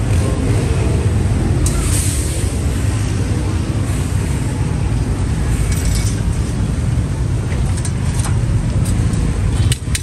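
Steady rumble of motor-vehicle traffic, with scattered clicks and knocks and a brief drop in level near the end.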